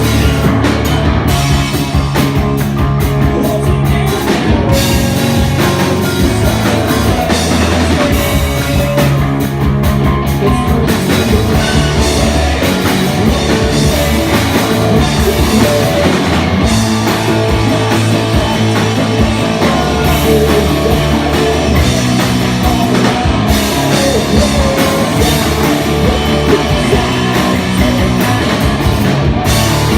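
Rock band playing live, loud and continuous.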